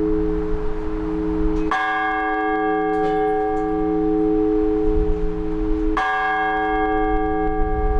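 Large Orthodox church bell struck twice, about four seconds apart, each stroke ringing on over a steady hum. These are the measured single-bell strokes of the blagovest, announcing the start of a service.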